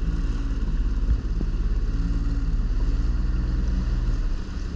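Jet ski engine running at low, steady speed, heard from the rider's seat, with a single knock about a second in; the engine note eases slightly near the end.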